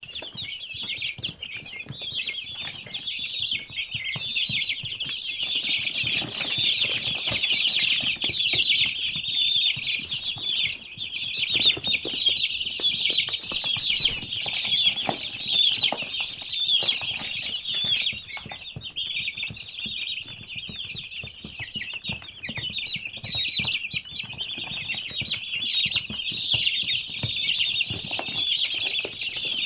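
A brood of baby chicks peeping continuously, many high, overlapping chirps at once.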